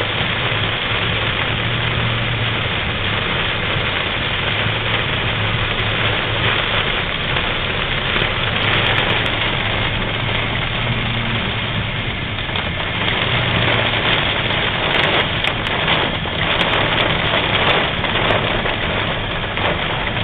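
Heavy rain and hail hitting a car's roof and windshield, heard from inside the cabin over the car's steady engine hum. Sharper hail hits stand out about halfway through and again in the last few seconds.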